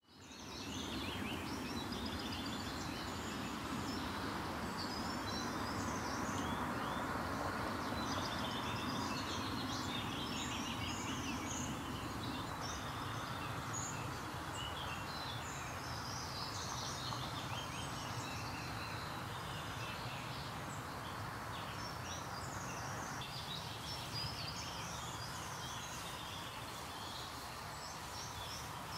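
Outdoor birdsong: many small birds chirping and singing, over a steady background rush.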